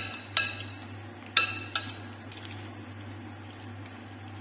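A spoon stirring a thick mixture in a glass mixing bowl, clinking against the glass four times in the first two seconds. Each clink rings briefly.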